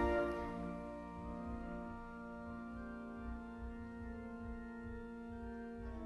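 Church organ holding sustained chords after the hymn's last line: a loud chord dies away over the first couple of seconds, then softer held chords continue, changing near the end. Faint low bumps sound underneath.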